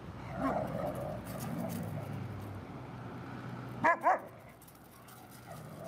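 Kangal-type dogs playfighting: growling in the first couple of seconds, then two short, sharp barks about four seconds in, the loudest sound.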